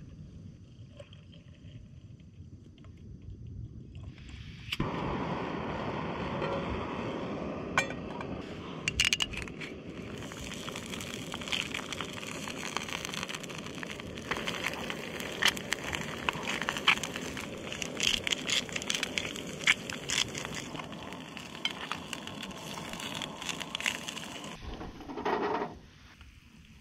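Eggs frying in a small pan on a gas canister camp stove, sizzling with many sharp crackles and pops. The sizzle starts suddenly about five seconds in and cuts off shortly before the end.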